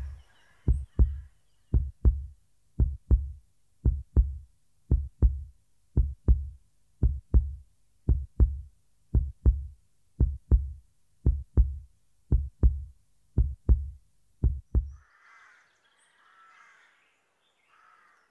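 Heartbeat sound effect: slow, deep lub-dub thumps about once a second, stopping about fifteen seconds in. Faint birdsong follows.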